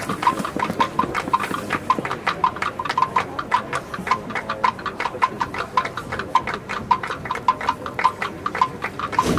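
Marching band percussion playing a steady clip-clop rhythm of light taps, about four or five a second, with a thin tone under the taps.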